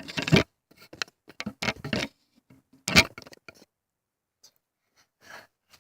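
A run of short clicks and rustles of things being handled, with one sharp knock about three seconds in, then faint scattered noises.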